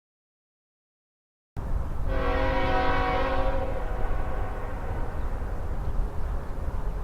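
Silence for about a second and a half, then a train's low rumble cuts in suddenly and a locomotive horn sounds one chord of several tones for about a second and a half. The rumble of the passing train carries on after the horn stops.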